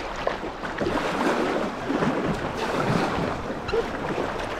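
Whitewater splashing and gurgling around a kayak, with paddle strokes in the current. The microphone sits close to the water on the kayak's bow.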